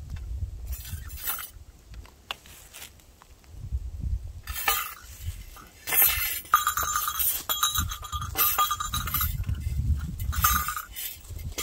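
Metal rings hung on a wooden staff jingling and clinking as the staff is shaken, in several shakes with a ringing metallic tone, starting about four and a half seconds in.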